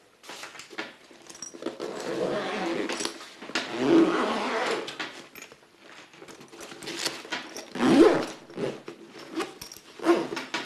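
Zipper on a soft infusion-pump carry bag being pulled closed, in a few separate long pulls with some handling of the bag.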